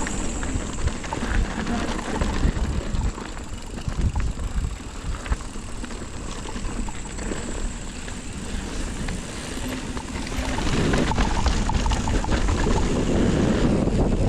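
Wind buffeting a helmet or action-camera microphone, over the rattle and clatter of a mountain bike rolling down a rough, rocky trail. The wind gets louder about ten seconds in.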